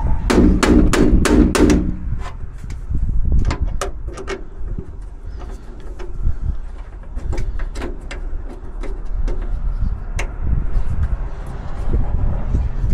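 Clicks, taps and clunks of metal parts being worked inside a Jeep YJ door during a door latch rod repair. A quick run of sharp clicks comes in the first couple of seconds, then scattered knocks follow.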